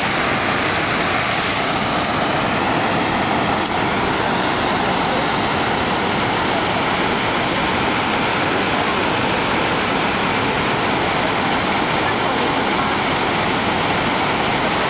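Steady roar of Niagara Falls' water crashing into the gorge.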